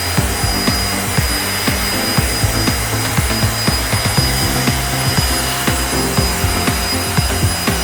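Agaro 800 W handheld vacuum cleaner running steadily with a thin high whine, over background music with a steady beat.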